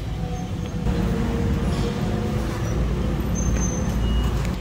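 Traffic on a busy city road: a steady low rumble of passing vehicles that swells about a second in, with a faint engine hum.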